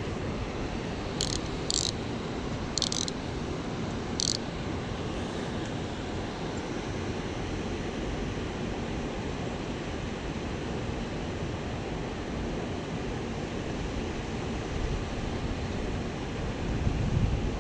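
Steady rush of river water over rocks, with four short high-pitched ticks in the first few seconds and wind buffeting the microphone near the end.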